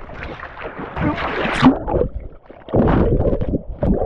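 Water splashing and sloshing close to the microphone in irregular bursts, loudest about a second and a half in and again around three seconds.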